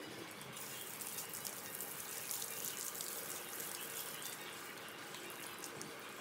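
Water spraying from a hose onto a dog's wet coat and splattering on the floor: a steady hiss that starts about half a second in and eases off near the end.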